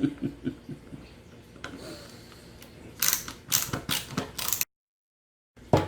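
Small bit screwdriver working the star-head screws of a plastic Bluetooth headset housing: a run of sharp clicks and ratcheting rattles, thickest about three seconds in. The sound drops out to dead silence for about a second near the end, then one loud click.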